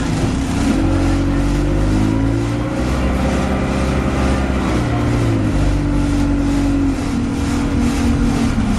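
Alexander Dennis Enviro200 Dart bus under way, its engine note stepping up and down in pitch, with a loud, regular ticking of about three to four ticks a second over the top.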